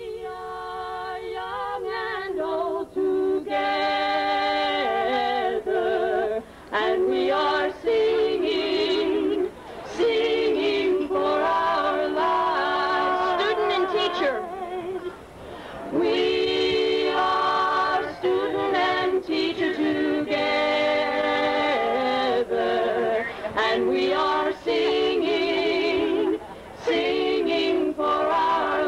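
Background music of unaccompanied singing: voices holding long notes with vibrato, phrase after phrase, with short pauses between phrases.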